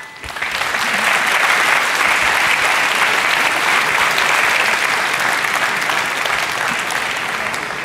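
Arena crowd applauding at the end of a boxing round. The applause builds over the first second, holds steady, and eases off slightly near the end.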